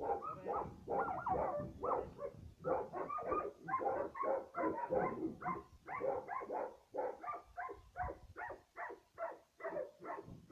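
Dog barking over and over, about two to three short barks a second without a break.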